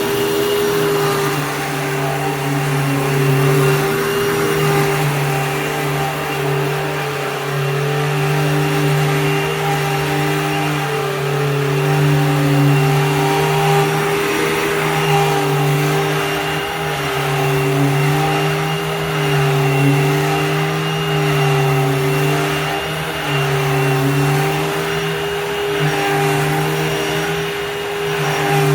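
Hoover Fold Away upright vacuum cleaner running, its motor humming steadily with slight rises and falls in level and pitch.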